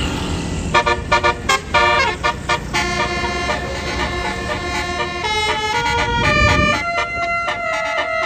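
Tour bus's telolet basuri multi-tone horn playing a tune: a run of short quick notes, then longer held notes stepping from pitch to pitch, over a low engine rumble.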